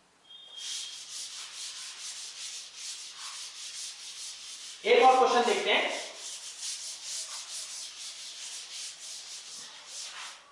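Chalkboard eraser wiping a chalkboard clean in rapid back-and-forth strokes, a dry rasping rub. About halfway through comes a louder pitched sound lasting about a second.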